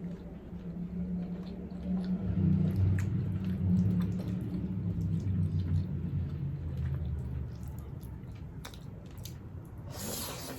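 Close-miked chewing and wet mouth sounds of a person eating, with scattered small clicks. A brief hissing sound comes near the end.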